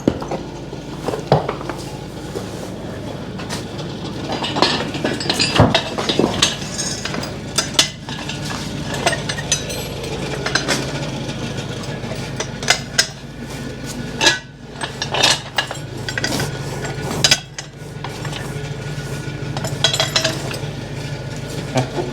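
Irregular metallic clinking and rattling of draft-horse harness chains and a horse-drawn manure spreader as the team works, over a steady low rumble.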